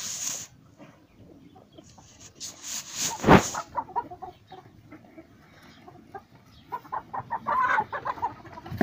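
Domestic chickens clucking, with a run of short clucks in the last couple of seconds. Bursts of hissing noise come near the start and about two to three seconds in, ending in a loud thump.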